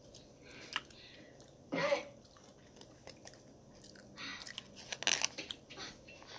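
Close-up chewing of oxtail: irregular mouth noises and small clicks, loudest about five seconds in.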